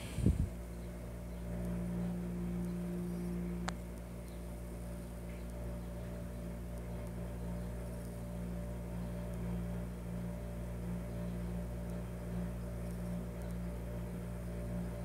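Steady low hum, with a couple of handling bumps right at the start and a single sharp click a little under four seconds in.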